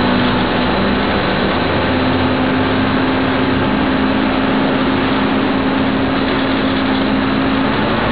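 Dennis Condor double-decker bus's diesel engine running as the bus drives, heard from inside the lower deck, with a steady low hum that drops away near the end.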